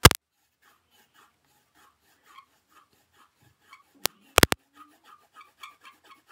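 Colored pencil scratching on paper in short, quick shading strokes, about three a second, with a few sharp clicks at the start and around four seconds in.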